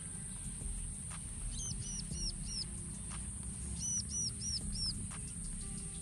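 A bird calling twice, each time a quick run of four high, arched notes, over steady outdoor rumble.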